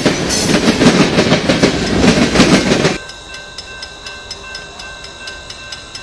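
Tank cars of a freight train rolling past close by, wheels clacking over the rail joints with a loud rumble. About three seconds in it cuts suddenly to something much quieter: a level crossing with its gate coming down and a steady, evenly repeating ringing.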